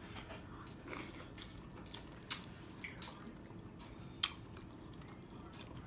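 Faint close-miked chewing of crab meat: soft wet mouth sounds with a few sharp little clicks, the loudest about two and four seconds in.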